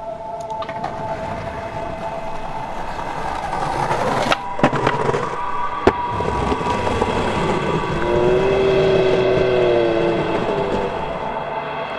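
Skateboard wheels rolling on concrete, with two sharp clacks of the board about four and a half and six seconds in. Sustained droning tones run underneath.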